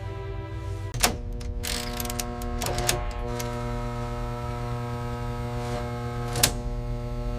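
A steady electronic-sounding hum of several held tones that shifts pitch about a second in and again about three seconds in, with a few sharp clicks, the loudest about a second in and near six and a half seconds.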